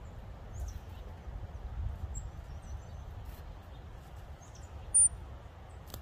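Small songbirds giving short, high chirps over a steady low rumble, with one much louder, sharp high chirp about five seconds in.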